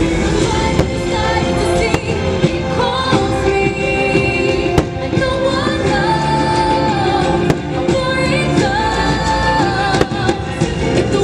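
Fireworks show soundtrack playing loudly, orchestral music with singing, while firework shells go off over it with a few sharp bangs spread through.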